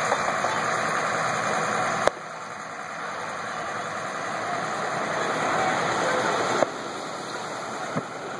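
Front-end loader's diesel engine running steadily. Sharp clicks about two seconds in and again past six seconds, each followed by a sudden drop in overall level.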